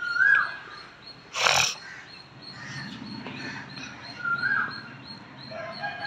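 Animal calls: a short high call that rises, holds briefly and drops, at the start and again about four and a half seconds in, and one harsh, noisy cry about a second and a half in, the loudest sound.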